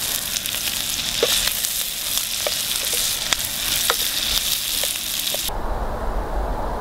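Sliced onions sizzling as they fry in a stainless steel pot, with a spatula clicking and scraping against the pot as they are stirred, about a dozen sharp clicks in all. About five seconds in the sizzling cuts off abruptly and a low steady rumble takes over.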